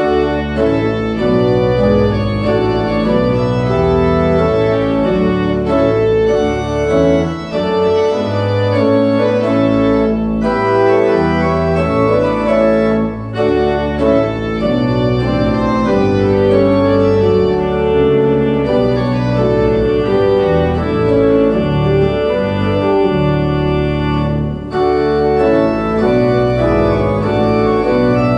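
Pipe organ playing a piece in full sustained chords over low bass notes, starting suddenly and pausing briefly a few times between phrases.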